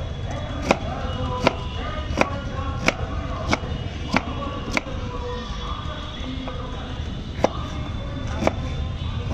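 Kitchen knife chopping peeled fruit on a wooden cutting board: sharp knocks of the blade on the board, about one every 0.7 s, pausing about five seconds in before two more near the end. Background music and voices run underneath.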